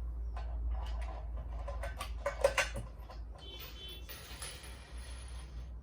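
Small clicks and knocks of lock hardware being handled, the loudest knock about two and a half seconds in, followed by a scratchy rustle lasting about two seconds.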